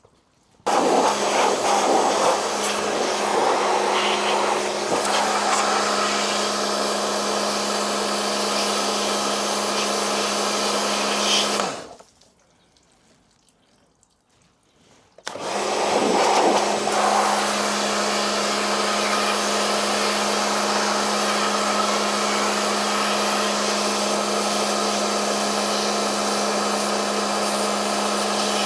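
A loud electric motor-driven cleaning tool runs steadily with a strong hum. It is switched off about twelve seconds in and back on about three seconds later.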